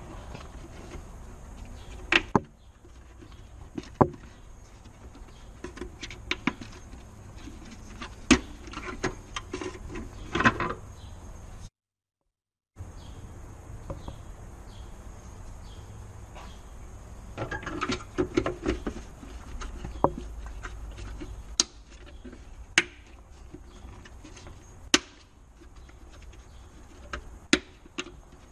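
Scattered sharp clicks and knocks of hard plastic as a Dacia Duster's rear tail light housing and its bulb holder are handled and fitted together, some coming in quick clusters, over a low steady background rumble. The sound drops out for about a second near the middle.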